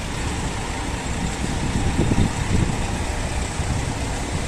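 Engine running steadily with a low rumble, briefly louder about two seconds in.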